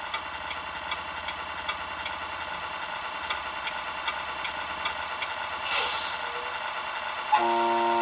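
Tamiya MFC-01 sound unit playing a simulated diesel truck engine at idle through its small speaker, a steady running note with a light regular clatter. A short hiss comes a little before 6 s, and about 7.4 s in a loud multi-tone air horn sounds and holds.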